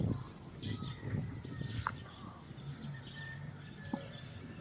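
Faint outdoor ambience: scattered short bird chirps and insect calls over a low background rumble.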